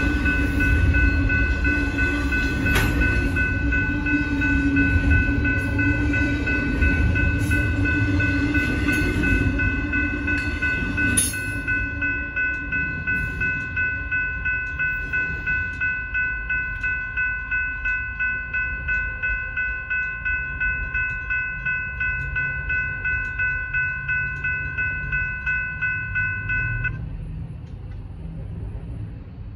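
Railroad crossing bell ringing fast and steadily, about two strikes a second, over the loud rumble and clatter of a passing freight train. The train clears about eleven seconds in, and the bell rings on alone. It stops near the end, as the crossing gates rise.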